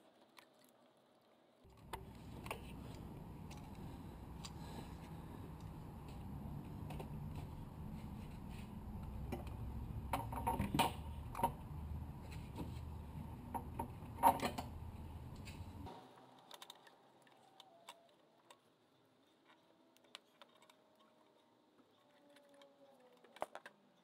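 Sharp metal clicks and clinks of hand tools and ignition parts being handled in an engine bay, over a steady low rumble that starts about two seconds in and cuts off abruptly about two-thirds of the way through; the loudest clicks come near the middle.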